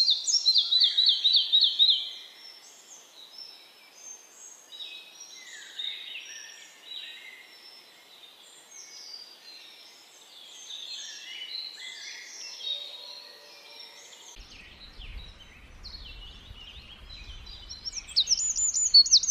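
Songbirds singing. It opens with a loud, fast run of repeated song notes, then many birds chirp and sing over one another. A low rumble comes in about three quarters of the way through, and near the end a loud, high, rapid trill begins.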